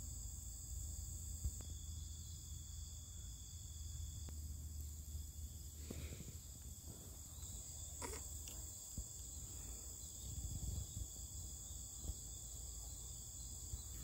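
Steady, faint chorus of crickets trilling high and unbroken, over a low hum, with a couple of brief faint rustles about six and eight seconds in.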